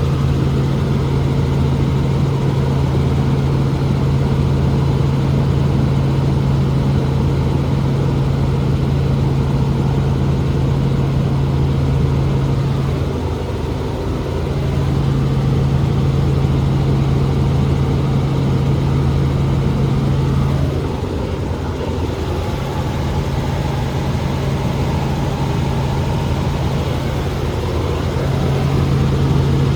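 Steady, loud drone of a helicopter's engine and rotors heard from inside the cabin in flight, with a strong low hum that eases briefly twice, about 13 and 21 seconds in.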